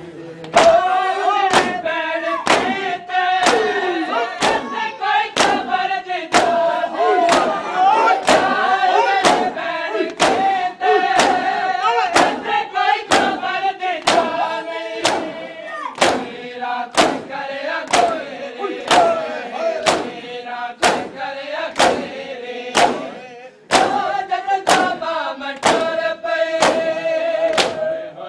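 A noha lament chanted by a group of men, accompanied by matam: rhythmic chest-beating with open hands, sharp slaps about three every two seconds, in time with the chant.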